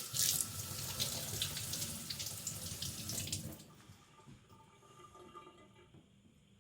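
Steel chopper blade stroked along a wet whetstone: a gritty, scratchy hiss for about three and a half seconds, then much fainter.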